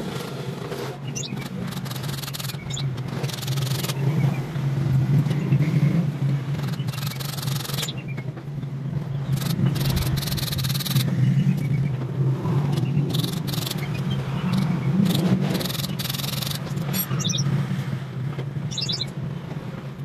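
A steady low mechanical hum throughout, with intermittent scrapes and light metal clicks as steel wire bars are handled and bent into a wooden birdcage frame, a few quick clicks near the end.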